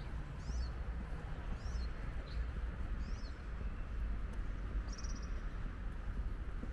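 Small birds chirping over a steady low rumble of city background: a few short high chirps in the first three seconds, then a brief buzzy trill about five seconds in.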